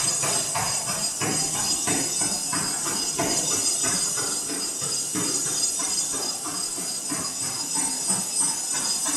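Runner's shoes striking a moving treadmill belt in an even rhythm, about three footfalls a second, over a steady high hiss from the running treadmill.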